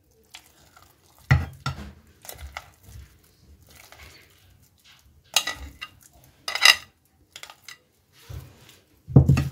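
Spoon scraping and knocking against a glass bowl as thick rice-and-vegetable batter is tipped out into a non-stick frying pan, with a string of separate clinks, a few of them ringing briefly and the loudest knock near the end. The pan is cold and not yet on the heat, so nothing sizzles.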